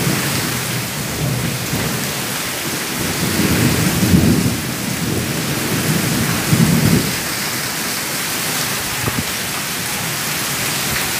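Heavy tropical downpour hissing steadily, with low rumbles of thunder swelling up a few times, loudest about four and seven seconds in.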